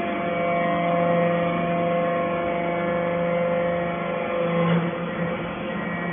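Steady mechanical hum from a vertical scrap baler's hydraulic power unit, electric motor and pump running.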